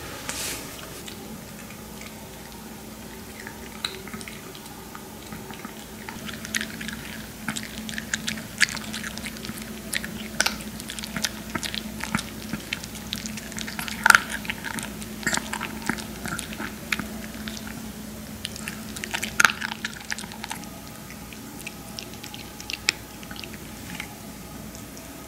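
Maltese puppy chewing dry kibble from a hand: irregular crisp crunches and clicks, thickest through the middle, over a low steady hum.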